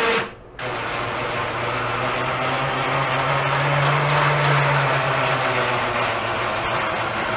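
An electric motor on the home-built quad runs under load. It cuts out for a moment just after the start, then runs steadily for about seven seconds with a low hum that rises slightly in the middle as the machine's front end lifts.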